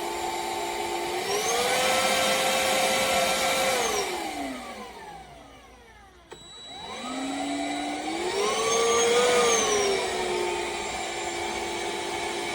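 Black+Decker PowerSeries+ 20V Max cordless stick vacuum's motor whining. About a second in its pitch rises and holds, then it winds down nearly to a stop, and after a click it spins back up, rising past its running pitch before settling back.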